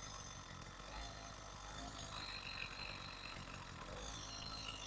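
Motorized bicycle's small kit engine idling faintly with the choke on while it warms up, a steady low rumble.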